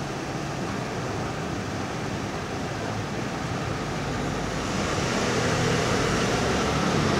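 Steady rushing noise with no distinct events, growing louder about five seconds in.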